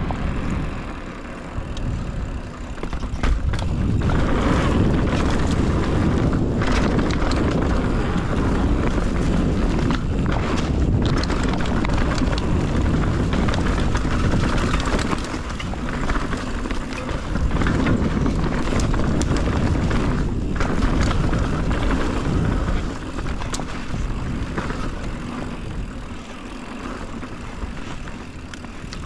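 Mountain bike riding down a dirt trail: wind buffeting the camera microphone and tyres rolling over the ground, with frequent sharp knocks and rattles from the bike over bumps. It grows louder about four seconds in and eases off near the end.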